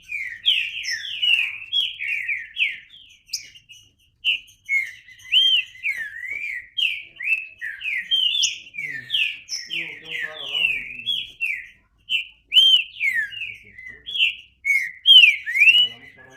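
Green-winged saltator (trinca-ferro) singing: a long run of quick, slurred whistled notes with short pauses about four seconds in and near twelve seconds.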